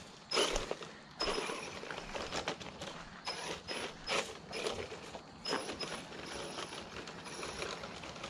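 Bezgar HM124 brushless RC car with open differentials driving up a rocky gravel trail in short throttle bursts: motor and gear whine with tyres scrabbling over stones, about eight bursts a half-second to a second apart.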